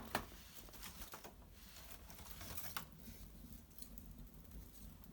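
Small fire of dried maple brushwood crackling in an irori hearth: faint scattered crackles, with a sharper pop just after the start and another nearly three seconds in.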